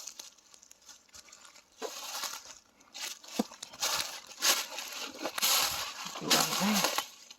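Rustling and crunching of dry leaves and brush underfoot, in irregular bursts that grow louder in the second half.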